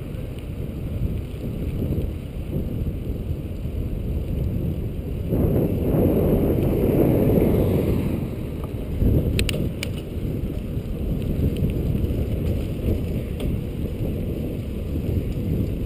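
Wind buffeting the microphone of a bicycle's handlebar-mounted camera while riding, over a steady rolling rumble of the bike. It swells louder for a couple of seconds near the middle, and a few sharp clicks come about nine and a half seconds in.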